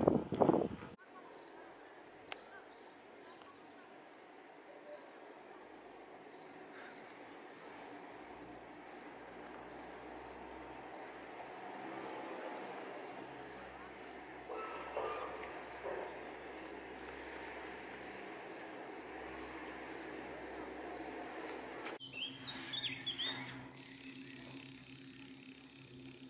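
An insect chirping steadily, short high chirps about two a second at one pitch, over a faint outdoor hiss. Near the end the chirping stops and a lower steady hum takes over, with a few short wavering calls.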